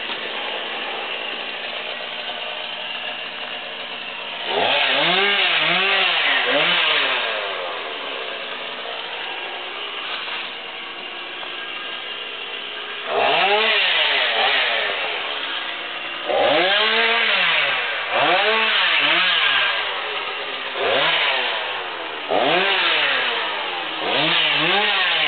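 Chainsaw cutting through brush, running between an idle and repeated bursts of high revs, its pitch swelling up and dropping in quick waves as the chain bites. The loud cutting stretches begin about four seconds in and come again and again through the second half, with a quieter idling spell between.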